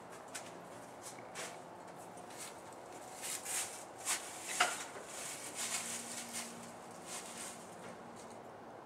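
Light footsteps and a few small clicks and knocks, the sharpest about four and a half seconds in, with a faint steady hum in the second half.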